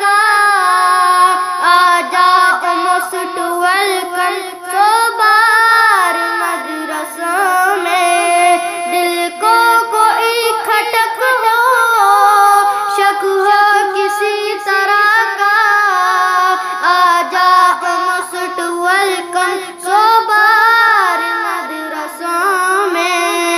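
A high voice singing a naat, an Urdu devotional song, in long ornamented melodic runs that glide up and down. No drums or bass are heard under it.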